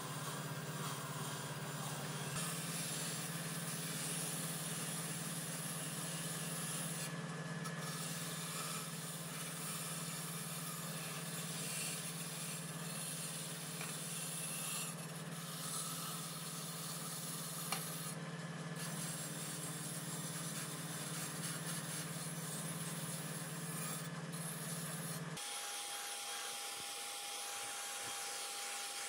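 Bench grinder motor running steadily with an abrasive wheel, as the sheet-steel telephone case and base plate are rubbed against it to strip them to bare metal. Near the end it gives way to a higher, thinner whine of an electric drill with a small abrasive wheel working inside the case.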